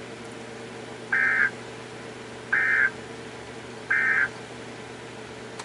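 Three short, buzzy EAS end-of-message data bursts (the SAME digital 'NNNN' signal), evenly spaced about a second and a half apart, marking the end of an emergency alert broadcast. A faint steady hum runs underneath.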